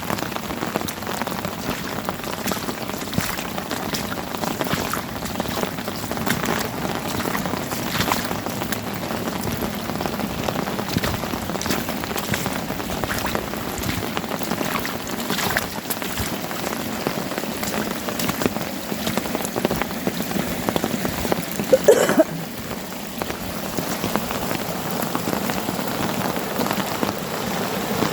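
Steady rain falling, with many individual drops ticking close by. About twenty-two seconds in there is a brief louder sound with a wavering pitch.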